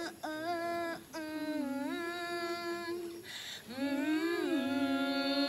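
A woman singing a slow tune in long held notes, stepping up and down in pitch, with a few short breaks between phrases.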